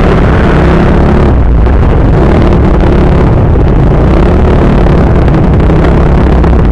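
Yamaha Mio Sporty scooter's stock single-cylinder four-stroke engine with a 28mm Keihin carburettor, running loud and steady as it rides at low speed, its pitch wavering slightly with the throttle.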